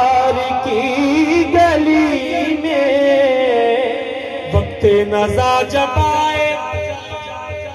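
A man sings a naat (an Urdu devotional song) into a microphone, drawing out the words in long, wavering held notes. Low thumps repeat under the voice, which eases off near the end.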